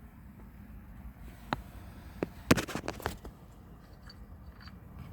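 Plastic electrical connector being unplugged by hand: a few sharp clicks and snaps as the locking tab is pressed and the plug is worked loose. The loudest snap comes about halfway through, with a quick cluster of smaller clicks just after it.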